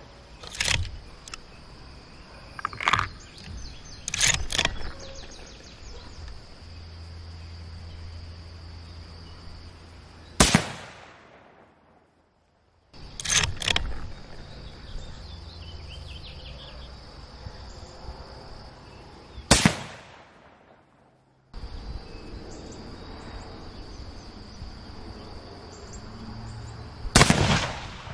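Three rifle shots from a .243 Winchester Savage Axis bolt-action rifle, several seconds apart, each a sharp crack with a short echoing tail.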